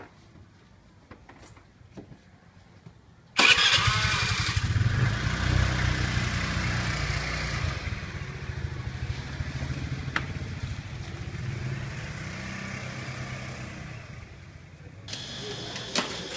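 An engine starts suddenly about three seconds in and keeps running with a low rumble, growing fainter, until it cuts off sharply near the end.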